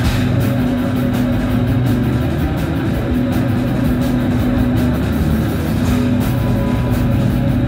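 A rock band playing loud live: electric guitars holding low notes over a Tama drum kit, with cymbals ringing throughout.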